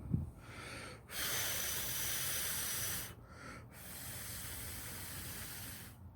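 Aerosol spray can hissing in two bursts, the first about two seconds long and the second a little quieter and longer after a short pause, as another shot of cleaner goes onto the ratchet mechanism. A short knock comes at the very start.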